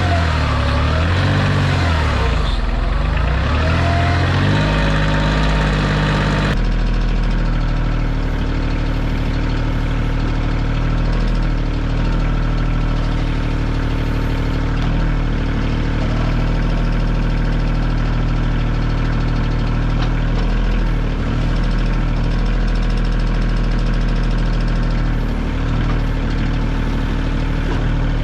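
Kioti tractor's diesel engine running a backhoe, its pitch dipping and rising under load for the first six seconds or so, then abruptly settling to a steady run.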